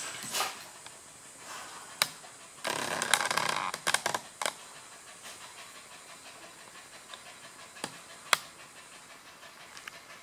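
Two dogs on a wooden floor: scuffling and a few sharp clicks and knocks, with a rough noisy burst about three seconds in, then the dogs panting.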